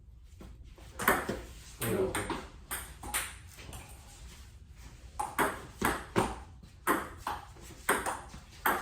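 Table tennis rally: a celluloid ping pong ball clicking sharply off paddles and the table, a handful of hits, a short lull in the middle, then a quicker run of hits about two per second.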